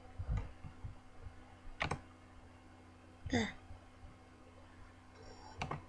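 A handful of short, scattered clicks from someone working at a computer, over a faint steady low hum.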